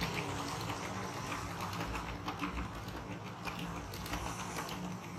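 HO scale model train coaches rolling past on the track: a steady rattling rumble of wheels with many small irregular clicks, over a low hum.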